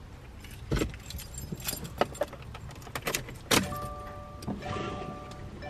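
Keys jangling and clicks inside a 2016 Subaru WRX's cabin. About two-thirds of the way in, a steady electronic chime starts and sounds in stretches with short breaks as the car's electrics come on; the engine is not running.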